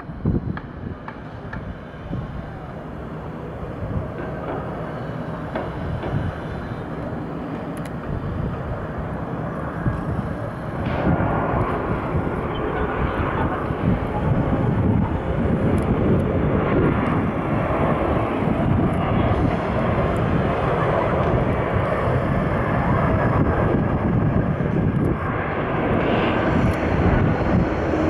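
Boeing 747-400F's four jet engines on final approach and landing. The engine noise grows steadily louder as the jet comes in and passes close by, stepping up about ten seconds in and again near the end.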